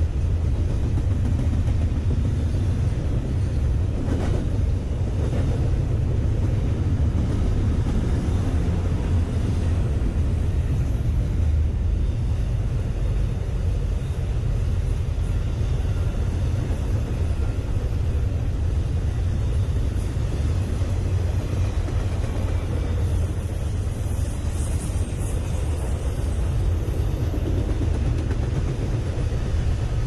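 Cars of a passing intermodal freight train, double-stack container well cars and trailer flatcars, rolling by with a steady low rumble.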